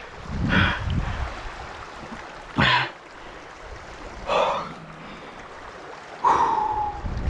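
Shallow stream water running over gravel, with four short gasps of a person's heavy, excited breathing about half a second, two and a half, four and a quarter and six and a quarter seconds in.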